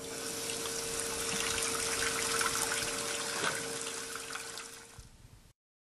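Water running from a tap into a sink, as for washing hands, in a steady rush that fades out near the end.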